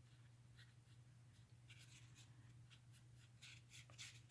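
Faint scratchy strokes of a paintbrush dabbing acrylic paint onto a textured canvas, in short irregular bursts, over a low steady hum.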